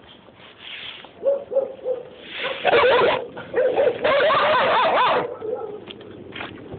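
Several caged dogs whining and barking, excited over treats being handed to them through the bars. Short calls come first, then two louder stretches of wavering cries, about a second each, around three seconds in and again from about four to five seconds in.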